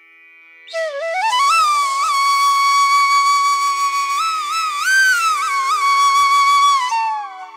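Background music: a single slow melody line, flute-like, that comes in about a second in, slides between notes and holds one long note, then fades near the end.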